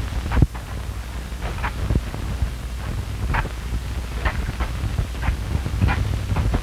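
Steady low hum and hiss of an old film soundtrack, with several short high chirps scattered through it.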